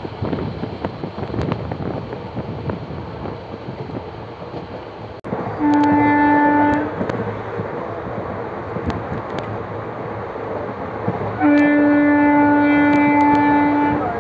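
Train horn sounding twice, one steady tone each time, over the steady rumble of the moving train. A short blast of about a second comes near the middle, then a longer blast of about two and a half seconds near the end.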